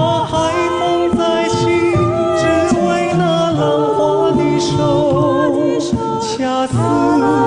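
Music: a slow ballad with held, wavering sung notes in layered vocal harmony.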